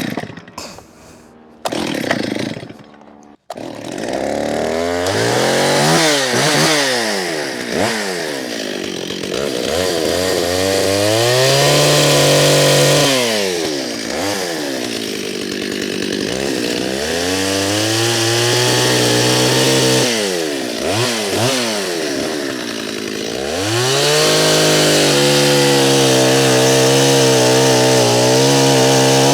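Chainsaw running through the back cut in the trunk of an Araucaria columnaris being felled, revving up and falling back several times, then held at a steadier pitch near the end. A few short loud sounds come before the saw settles in.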